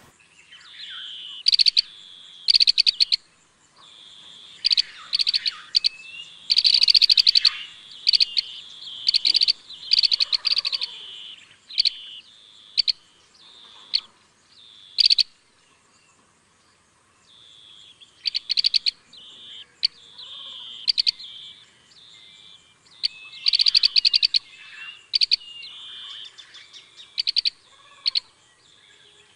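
Green bee-eaters calling: bursts of short, rapid trilled chirps, high-pitched and repeated, with a pause of a couple of seconds about halfway.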